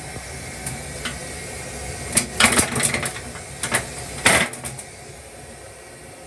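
Black plastic toilet seat being handled and lowered onto a stainless-steel toilet: a run of clacks and rattles from about two seconds in, the loudest just past four seconds. Under it runs the steady hiss and rumble of the railcar.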